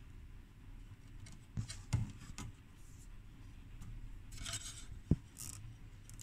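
Faint handling noise: a few light clicks and taps, three close together a couple of seconds in and a sharper one about five seconds in, with short soft rustles between, as fingers move insulated hookup wires on the small audio transformers inside the metal chassis.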